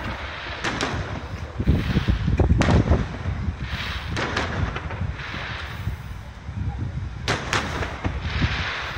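Fireworks display: aerial shells bursting in a series of loud booms, several close together about two to three seconds in and a pair near the end, with low rumbling and hissing between the bangs.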